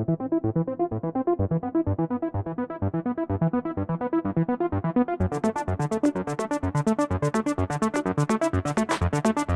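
Electronic background music with a steady synth beat; about halfway through it turns much brighter as high, crisp notes join the rhythm.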